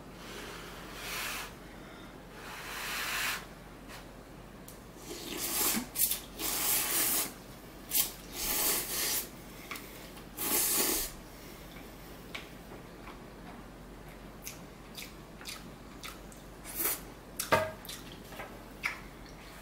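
A person slurping instant ramen noodles from a bowl, in several wet bursts of about a second each, followed by small mouth clicks and a sharp tap near the end as chopsticks are set down on the table.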